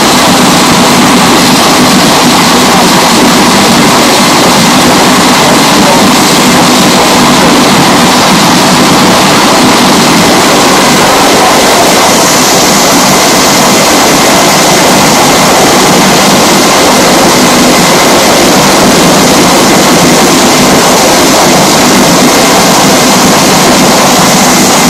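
Wind tunnel running: a loud, steady rush of air and fan noise with faint steady tones in it, turning a little hissier from about halfway through.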